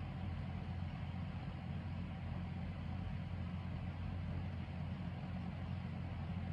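Steady low machine hum with no other events.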